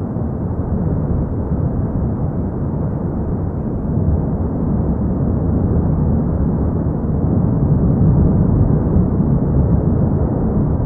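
Cumbre Vieja volcano erupting: the vent and lava fountain give a continuous deep, rumbling roar. It swells slightly about four seconds in and is loudest near eight seconds.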